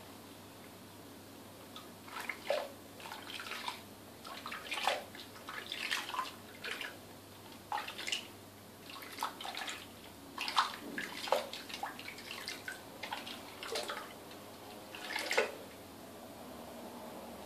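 Bathwater splashing and sloshing in a bidet as hands rub and scoop water over a guinea pig, in irregular short splashes that start about two seconds in and die away near the end.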